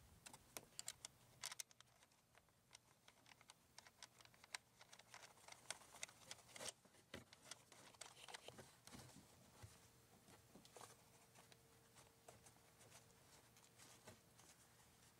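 Faint, irregular clicks and small metallic taps of cable lugs being fitted onto a 6-volt battery's positive terminal post and a nut being threaded on by a gloved hand.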